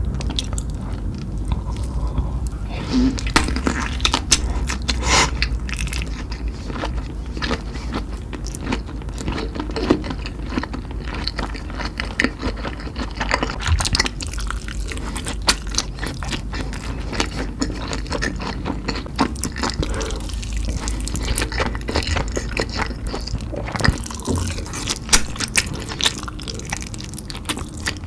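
Close-miked eating: chewing and biting into noodles and kielbasa sausage, dense with small irregular wet clicks and crunches over a low steady hum.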